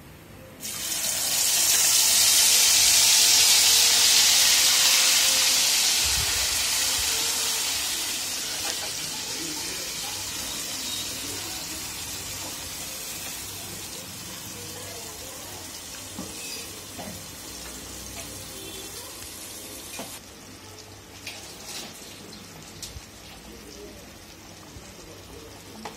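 Ground masala paste hitting hot oil and cumin in a nonstick kadhai: a sudden loud sizzle about half a second in that slowly dies down over some twenty seconds as the paste fries. A few light knocks near the end.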